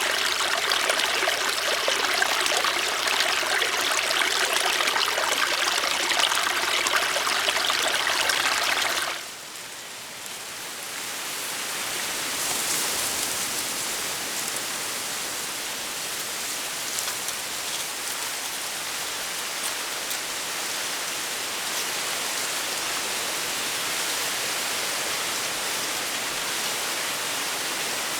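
A small winter creek babbling and gurgling. About nine seconds in it cuts off abruptly, and a quieter, steady rushing hiss of wind through the forest follows.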